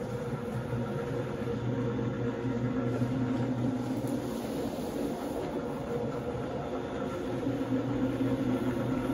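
Single-disc rotary floor scrubber running steadily, its brush scrubbing a wet, soapy shag rug: a constant motor hum over the even scrubbing noise of the brush.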